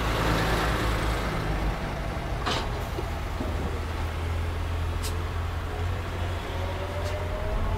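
Turbocharged Toyota Supra inline-six engine in a BMW E30 M3, with a large Garrett GTX42R turbo, idling with a steady, lumpy low running sound. Two sharp clicks come through, about two and a half and five seconds in.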